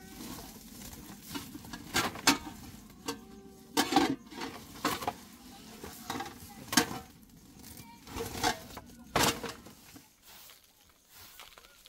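A series of irregular sharp knocks and clicks, a dozen or so spread over several seconds, quieter near the end.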